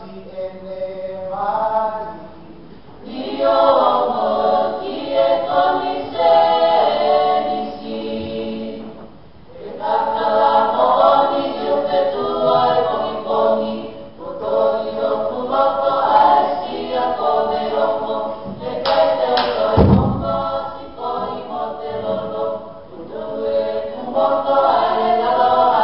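A group of voices singing a Tongan dance song together in phrases, with short pauses between them. One sharp thump cuts through about three-quarters of the way in.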